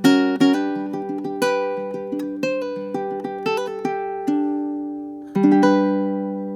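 Koa tenor ukulele with low-G stringing (Kanileʻa D-1 Tenor Pro) played solo: a run of plucked notes and chords, then a final chord about five seconds in, left to ring out and fade.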